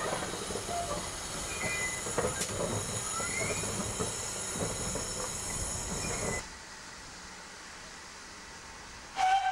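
GWR steam locomotive and tender rolling slowly over the rails, its wheels giving repeated short rising squeals about once a second, with a few rail clicks. The sound cuts off abruptly about six seconds in to a quieter background, and a brief loud tone sounds near the end.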